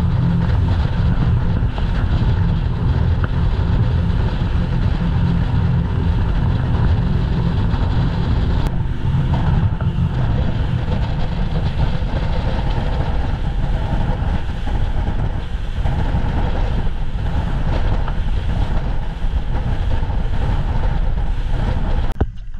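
Speedboat running fast over open sea: a loud, steady, low roar of engine, rushing water and wind on the microphone, with no let-up until it cuts off just before the end.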